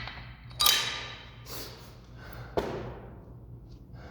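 Two sharp knocks about two seconds apart, each ringing and fading out over about a second, over a steady low hum.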